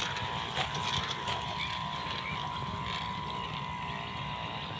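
Steady low rumble with a faint, even hum running through it, and a couple of soft clicks about a second in.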